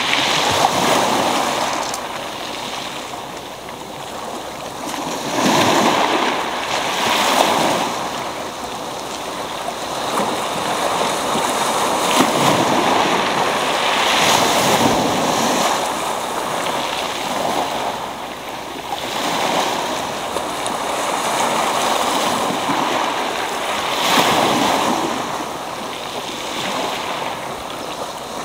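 Small sea waves breaking on a pebble beach, the foam washing over the stones and drawing back. The surf swells and eases every several seconds.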